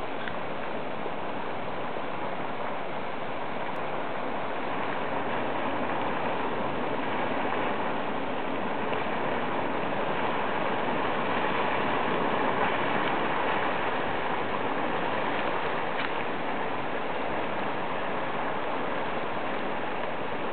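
Steady rush of water from a boiling hot spring and its outflow.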